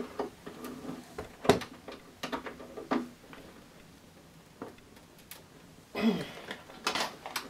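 Scattered metal clicks and knocks of a door handle and latch assembly being worked on by hand, the sharpest knock about one and a half seconds in.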